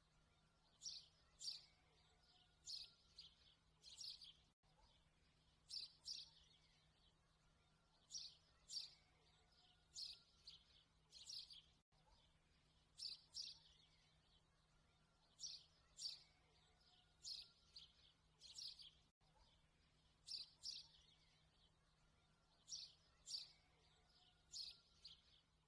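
Faint birds chirping: short high chirps, mostly in pairs, about every second or so, over a faint background hiss. The pattern repeats about every seven seconds, like a looped birdsong recording.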